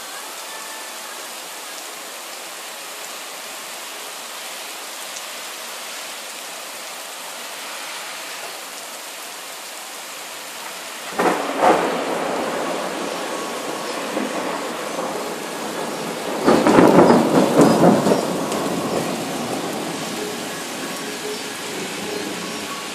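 Steady rain falling, then thunder: a sudden clap about eleven seconds in that rumbles on, and a louder rumble of thunder a few seconds later that fades back into the rain.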